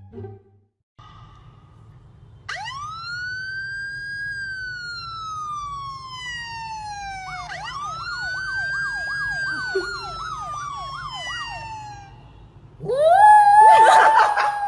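A siren sound played from a phone: two long wails, each rising quickly and then falling slowly, the second with a fast warble over it. Near the end a small white poodle-type dog howls loudly along with it.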